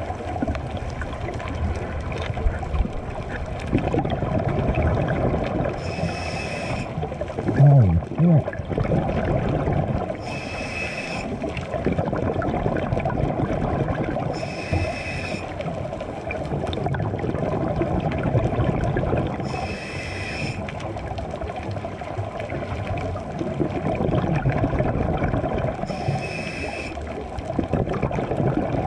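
Scuba diver breathing through a regulator underwater: five short inhalation hisses about every four to six seconds, with bubbling, gurgling exhalations between them. One louder low burble about eight seconds in.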